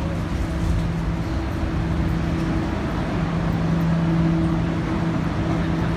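Cabin noise inside a Guangzhou Metro Line 1 Adtranz-Siemens A1 subway train: a steady rumble with a constant low hum.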